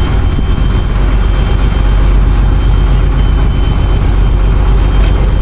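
Strong wind buffeting the microphone: a loud, steady low rumble with no breaks.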